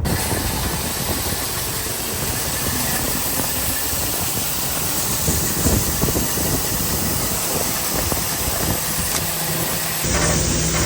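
Heavy diesel engine running, with a loud steady rushing noise over it.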